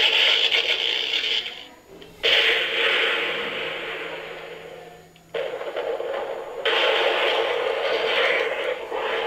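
Electronic sound effects from a Stormbreaker toy axe's small battery-powered speaker, set off by shaking the axe: harsh, hissy bursts that start suddenly and fade. One is already fading at the start, and new ones start about two seconds in, about five seconds in and again just under seven seconds in.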